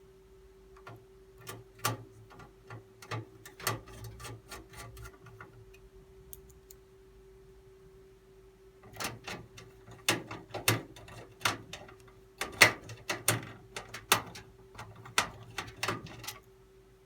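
Irregular metallic clicks and taps of a screwdriver and screws as a motherboard is screwed down onto the case's standoffs, in two bursts with a pause between, over a faint steady hum.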